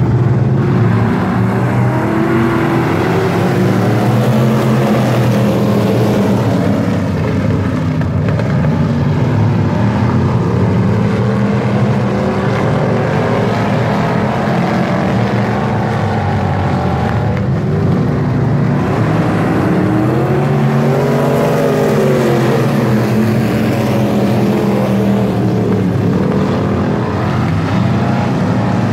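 A pack of dirt-track race cars running at speed, their engines loud and continuous, with the pitch rising and falling as cars pass by.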